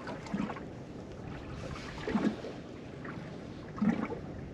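Water slapping against the hull of a small drifting boat, a short low knock about every one and a half to two seconds over a steady hiss of wind and sea.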